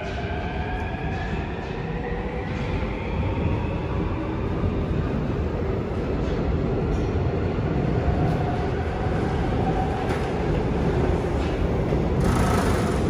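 Seoul Subway Line 4 electric train pulling out of the station: the traction motors' whine climbs in pitch on several tones over the first couple of seconds as it speeds up, then gives way to a steady rumble of wheels on rail. A brief, louder rush of hiss comes near the end.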